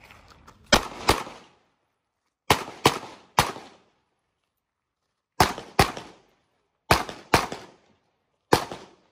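Handgun fired ten times while the shooter moves through a stage, mostly in quick pairs about half a second apart, typical of two shots per target, with gaps of one to two seconds between pairs. Each shot trails off briefly.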